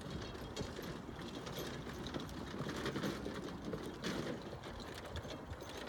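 Horse-drawn carriage on the move: a steady rattle and crunch of wheels and fittings over the ground.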